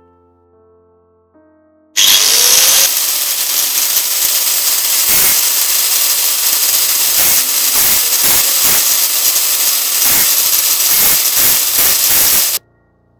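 A small power tool starts up with a brief rising whine and runs loudly for about ten seconds, its sound pulsing and dipping again and again as it works, then cuts off suddenly. Faint background music plays before it starts.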